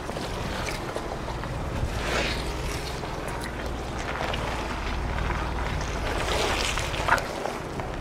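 Ford Bronco's 2.7-litre twin-turbo EcoBoost V6 running at low speed as it crawls over a rocky trail, with tyres crunching over rocks and gravel and a sharp knock about seven seconds in.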